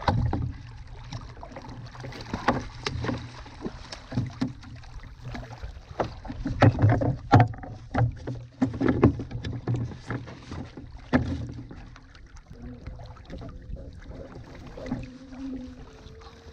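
Irregular knocks, taps and thuds on the plastic hull and deck of an Ocean Kayak Prowler 13 sit-on-top fishing kayak as a small smooth-hound is brought aboard and unhooked, with the fish and tackle bumping against the kayak. The knocks are busiest midway, over a steady low rumble of water and air.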